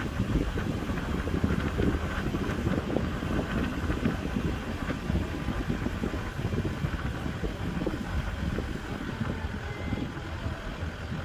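A car driving slowly: steady low road and engine rumble, with wind buffeting the microphone.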